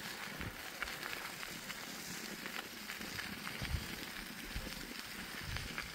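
Light rain falling steadily: a fine, even patter of drops, with a few soft low thumps.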